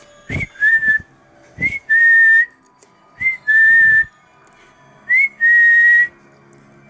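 A person whistling four times, each a short rising chirp followed by a longer held note, breathy with a lot of air in it: call whistles from someone who can't whistle well.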